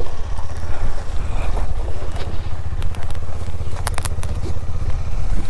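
KTM 250 Duke's single-cylinder engine running steadily as the motorcycle rides off, with a few sharp clicks about four seconds in.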